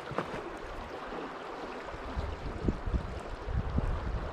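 Fast river current rushing over rocks by a small waterfall, a steady hiss of water, with a few brief low bumps on the microphone.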